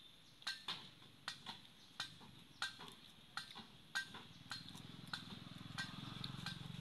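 Long-tailed macaque chewing food, a run of sharp wet mouth clicks about every half second. A low steady hum grows in underneath from about halfway in.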